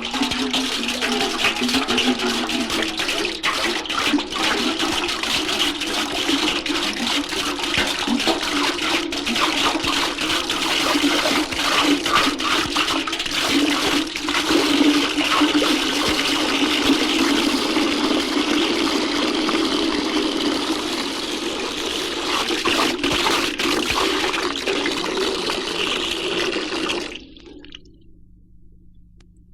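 Water poured steadily into a bucket in a continuous splashing rush, cutting off abruptly about 27 seconds in; a faint hum of record surface noise remains.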